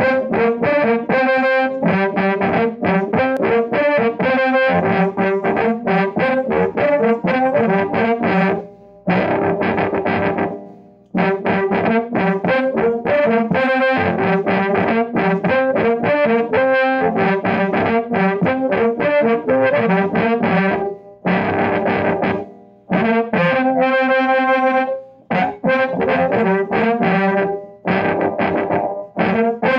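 Blues harmonica amplified through an Electro-Voice 605 microphone fitted with a Shure CM element, a small Radson 305 tube amp (EL84 and 6AN8A, 5 W) and a 12-inch Alnico speaker in an Ampro cabinet. It plays rhythmic repeated chords and some held notes, with a few short breaks.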